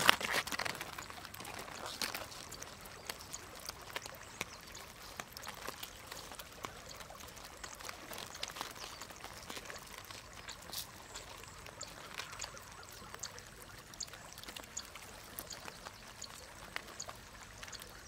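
Wet crackling and clicking from a mass of live freshly caught river shrimp and crabs moving in a container, with water trickling and dripping; a louder pouring splash at the very start and another about two seconds in.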